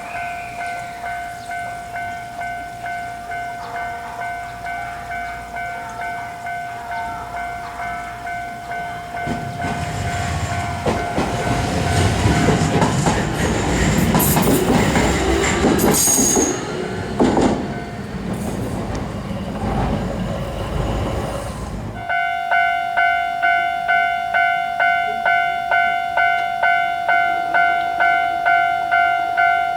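Japanese level-crossing warning bell clanging in a steady rhythm as a train passes over the crossing, from about nine seconds in to about twenty-two, loud with wheel and rail noise and a brief high-pitched sound partway through. Then a sudden switch to another crossing bell, louder and higher in pitch.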